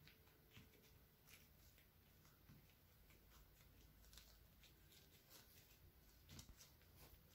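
Near silence, with faint scattered rustles and light clicks of dried bean curd skin being rolled by hand on a wooden cutting board.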